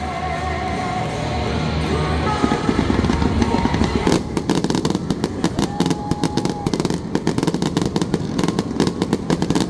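Fireworks show: a loud low rumble of bursts, then from about four seconds in a dense, rapid crackling of many small pops.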